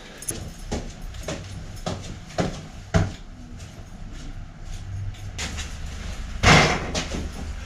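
Handling noise: a run of scattered knocks and clunks as the camera is moved and set down, over a steady low hum, then one louder scraping bump about six and a half seconds in.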